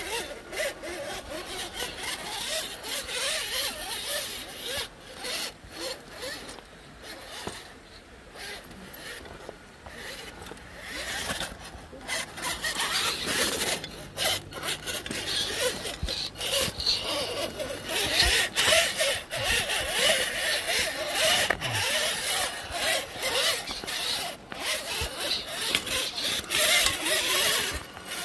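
1/8-scale RC rock crawler's drivetrain whirring in fits and starts as its tyres grind and scrape over rock, with many small clicks and crunches. It gets louder about halfway through.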